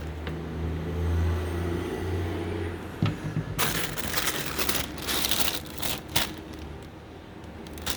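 Paper rustling and crinkling as a sneaker box is opened and its contents handled, starting after a sharp click about three seconds in. A low steady hum runs underneath and is strongest in the first two seconds.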